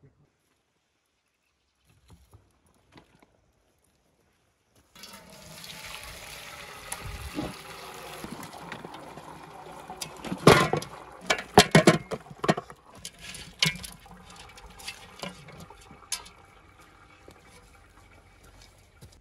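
Broth and boiled cow's-head meat poured from a cauldron into a metal basin. A pouring, splashing rush starts about five seconds in, with a run of sharp knocks and clangs from bones and meat dropping against the metal, loudest a little past halfway. It then thins out.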